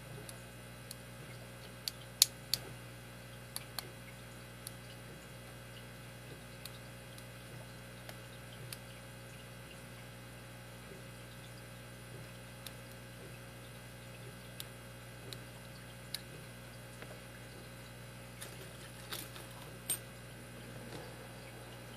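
Scattered light metallic clicks and ticks of a pick and tension wrench working the pins inside an old Master Lock 160 padlock, the sharpest about two seconds in and another pair near the end, over a steady low hum.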